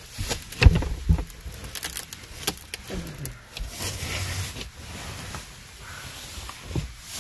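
Rustling of a plastic protective bodysuit and fiberglass insulation, with irregular knocks and thumps of a person crawling and squeezing through a small opening between attic joists. The loudest thump comes under a second in.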